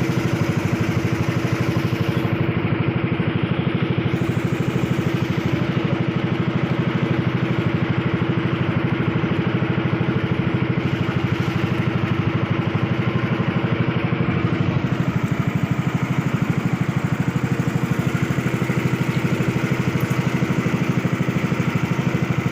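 Motorized outrigger boat (bangka) engine running steadily at an even speed, with a rapid, even pulse.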